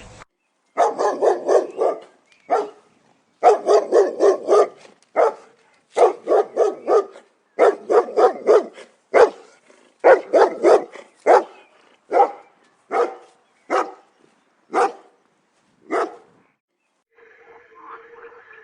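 Dog barking: quick runs of four or five barks, then single barks more widely spaced, stopping about sixteen seconds in.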